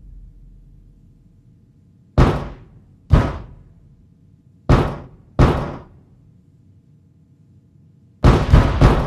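Seven sharp percussive knocks, each dying away within about half a second: two single hits, another pair, then three in quick succession near the end.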